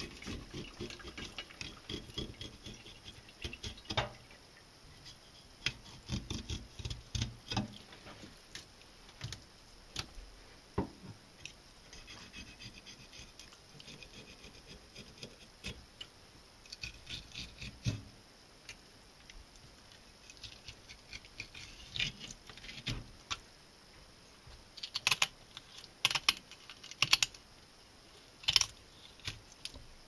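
Kitchen knife filleting a largemouth bass on a plastic cutting board: short scraping rasps as the blade works through the flesh, with scattered clicks and taps of the knife on the board. A few louder, sharper clicks come near the end.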